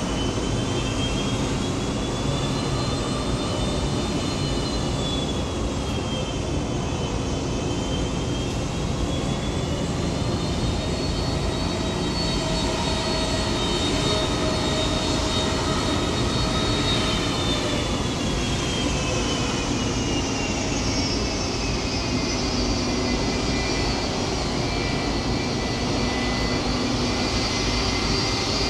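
Jet airliner engines running at taxi power: a loud, steady rush with high whining tones that slowly rise and fall in pitch.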